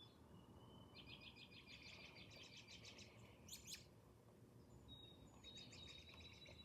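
Faint bird chirps and quick trills over quiet room tone, in two spells, with a short click about three and a half seconds in.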